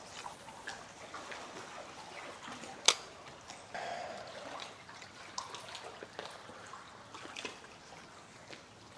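Tidal current trickling and lapping along the shore, with scattered small ticks of handling and one sharp click about three seconds in.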